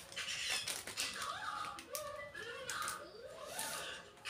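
Scattered light clicks and taps from handling a plastic selfie-stick phone holder, with faint voices in the background.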